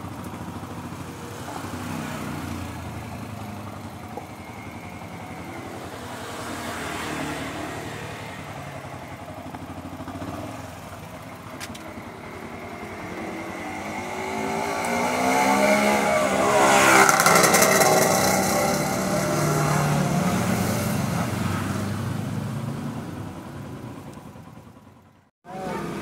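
Motorcycle engines running in the street, with one motorcycle passing close by about halfway through, growing loud and then fading away.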